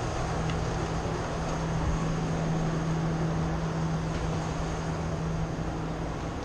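A steady low mechanical hum over an even rushing noise, typical of a large indoor hall's ventilation fans. The hum weakens about five and a half seconds in.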